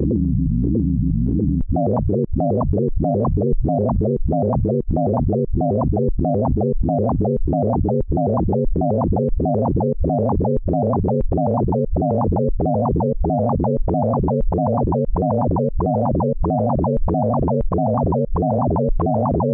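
Synthesized tones from a Pure Data sonification of a photograph's pixel colours. A low droning chord changes about 1.7 s in to a fast, even pulsing of stacked tones, about four pulses a second.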